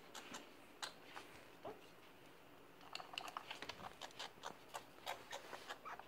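Faint, scattered light ticks and scrapes. A few come in the first second and a quicker run follows in the second half.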